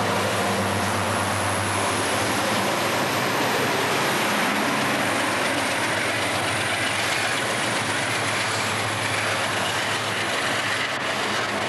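Loaded iron-ore train rolling past close by: its diesel-electric locomotives, including EMD SD40-2s, drone steadily under load over the roar of steel wheels on the rails. Near the end the loaded ore wagons follow with a clattering wheel-and-rail rumble.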